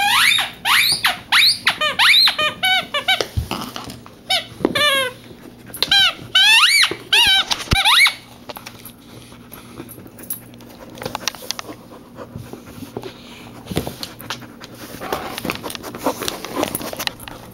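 Samoyed puppy chewing a squeaky rubber toy: a quick run of high squeaks for about the first eight seconds, then only soft clicks of chewing and mouthing.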